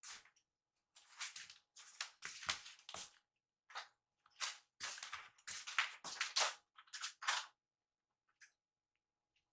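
Two kittens play-wrestling on a mesh-covered stool: quick bursts of scuffling and claws scratching on the fabric, with a few soft thumps.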